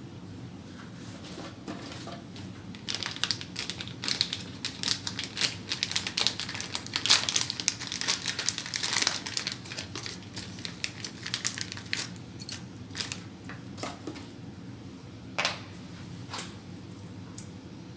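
Crinkling and crackling as Cat 6 cable and its plastic are worked by hand: a dense run of small clicks for several seconds, then scattered single clicks, over a steady low hum.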